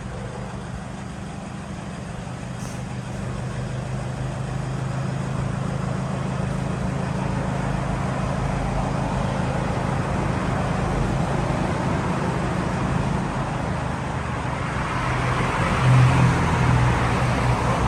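Motor vehicle engine and road noise, steady and growing gradually louder, with a brief louder low surge near the end.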